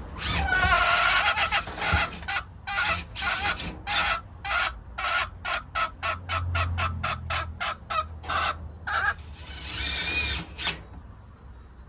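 Hen cackling loudly. A long squawk opens it, then comes a quick run of a dozen or more short clucks, several a second, and it ends in another long squawk.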